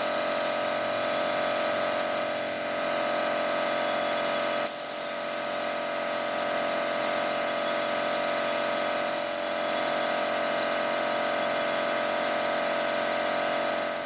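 Gravity-feed air spray gun hissing steadily as it sprays paint, with a steady whine under the hiss.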